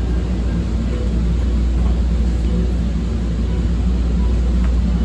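Steady low rumble inside a CTA 5000-series rapid-transit railcar standing at a station, while its doors slide shut.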